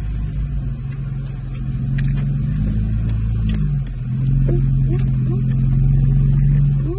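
A 2018 Jeep Wrangler Unlimited Rubicon's engine running at low speed as it crawls through a tight rock slot, heard from inside the cabin. It gets louder about four seconds in, and scattered light clicks sound over it.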